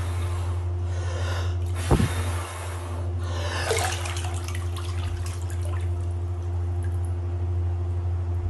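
Bathwater sloshing and splashing in a bathtub as a man lowers himself under the surface, with a single thump about two seconds in. A steady low hum runs underneath and is all that remains once he lies still under the water.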